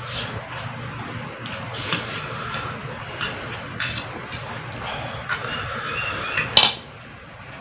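Close-up eating sounds: chewing instant fried noodles and raw vegetables, with scattered clicks of cutlery on a plate and one sharp clink a little before the end.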